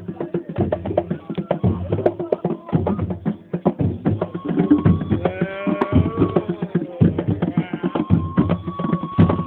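Drums played by hand in a fast, dense rhythm. About halfway through, a held melodic line comes in over them and bends up and down in pitch.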